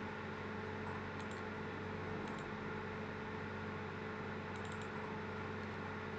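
Steady low hum and hiss of the room and microphone, with a few faint computer-mouse clicks.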